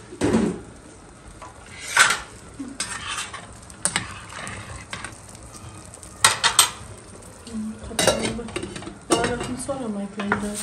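Cooking clatter on a gas stove: several sharp knocks of utensils and lids against stainless steel pots and pans over a light sizzle of zucchini and tomato cooking in a wide pan, stirred with a wooden spoon near the end.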